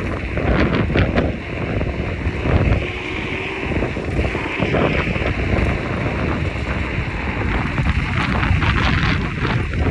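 Wind buffeting the microphone: a steady, loud rush of noise, heaviest in the low end.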